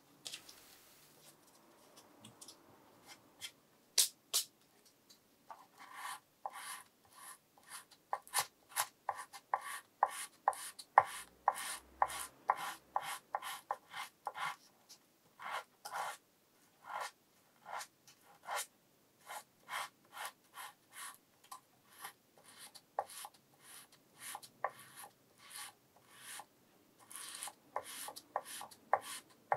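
Sandpaper on a small wooden block rubbed back and forth in the bare-wood neck pocket of a guitar body, in short dry strokes about two a second. The strokes start about six seconds in, after a couple of sharp clicks.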